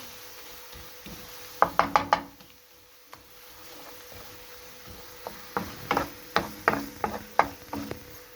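A spoon stirring grated tomato and onion in a cooking pot, knocking and scraping against the pot in two bouts of sharp knocks, the second longer, about five seconds in.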